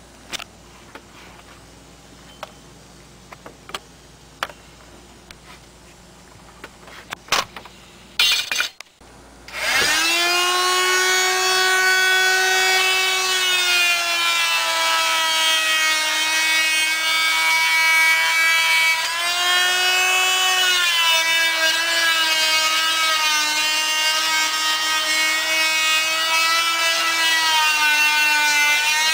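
A few scattered clicks and knocks, then about ten seconds in an electric power saw starts and runs with a steady high whine, its pitch sagging and recovering several times as it cuts wood.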